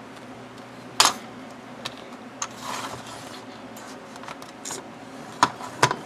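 Plastic clicks and taps from a thin plastic cutting-mat sheet being set in place on a plastic paper trimmer: a sharp click about a second in, a short scraping slide around the middle, and a couple more clicks near the end.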